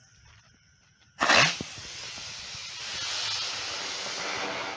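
Helicopter firework catching with a sudden sharp burst about a second in, then a steady rushing hiss as it spins and flies up in a shower of sparks.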